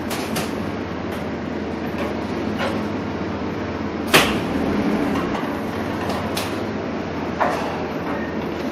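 Doosan forklift engine running steadily, with a handful of short sharp knocks from the machine, the loudest about four seconds in.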